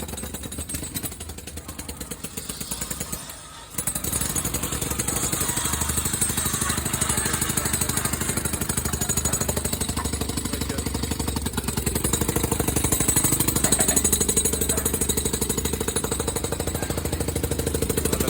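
A jackhammer-type breaker hammering in a rapid, steady pulse; it dips and stops briefly about three and a half seconds in, then runs on louder.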